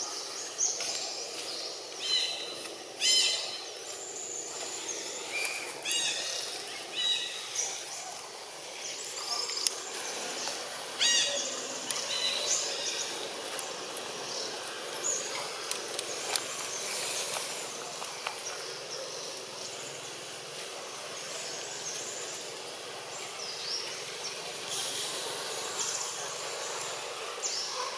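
Outdoor forest sound: short, high animal calls come several at a time through the first half, over a steady high hiss of background outdoor noise that carries on after the calls thin out.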